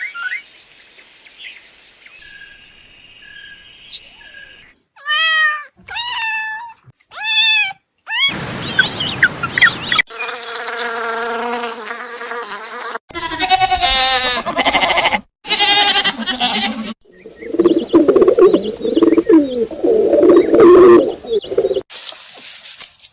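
Animal calls from several short clips spliced back to back, each starting and stopping abruptly: three short cries that rise and fall in pitch, then longer, denser calls.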